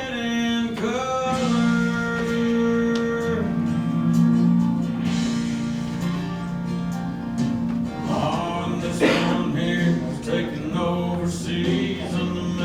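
Recorded country-style song with a singer holding long notes over guitar, the guitar becoming more prominent later on.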